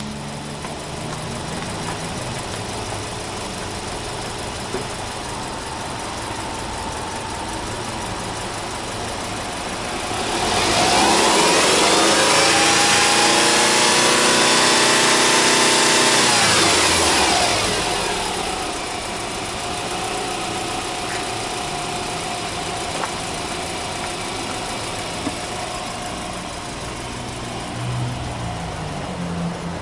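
Subaru Impreza 15S's 1.5-litre flat-four engine idling steadily, then revved with no load about ten seconds in: the pitch climbs, is held high for some six seconds, and falls back to idle.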